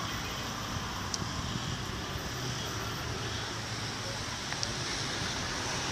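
Steady street background noise: traffic rumble with wind on the microphone, and a couple of faint ticks.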